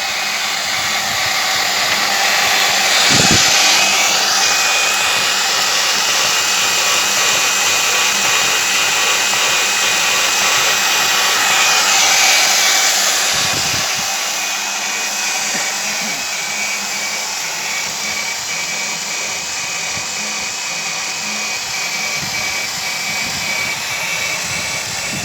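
Portable line-boring machine running, its boring bar turning and cutting in the pin bore at the end of a CAT excavator arm: a steady whirring hiss with a thin high whine.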